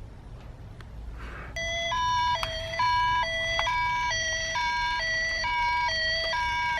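Toy ambulance's electronic two-tone siren sounding the Japanese hi-lo 'pee-po' pattern, two notes alternating about every 0.4 seconds. It starts about a second and a half in, after a few faint clicks.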